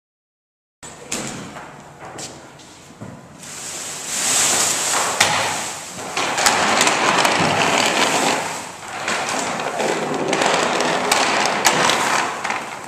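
Silent for about the first second, then wooden boards knocking and scraping against heavy mesquite log halves as they are levered into place, with a lot of plastic sheeting rustling.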